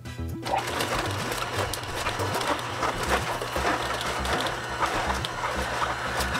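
Nama slow juicer starting up about half a second in, its motor humming low while the auger crushes and grinds purple cabbage with a dense crackling. Cabbage is slow, hard work for this juicer.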